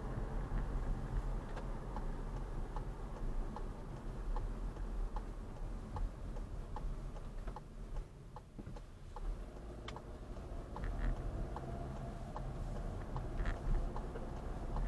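A car's turn-signal indicator clicking in an even rhythm, heard inside the cabin over the low hum of the car driving.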